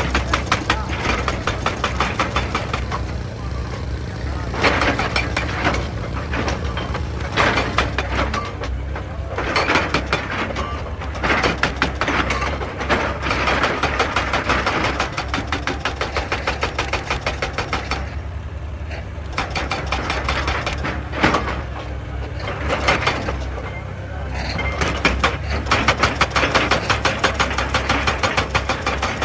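Excavator engine running steadily, with long stretches of rapid, evenly repeated knocking against rock.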